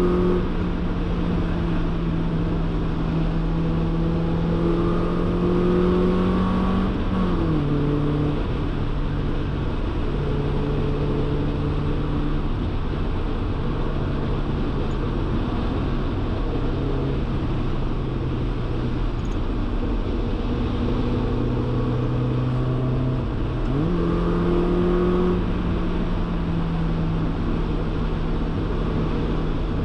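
Mazda MX-5 NB 1.6 four-cylinder through a Friedrich Motorsport Group A exhaust with tubular manifold and metal sports cat, picked up by a rear-mounted microphone while cruising: a steady exhaust drone. The revs drop quickly about a quarter of the way in, sag slowly, then climb back about three-quarters of the way in.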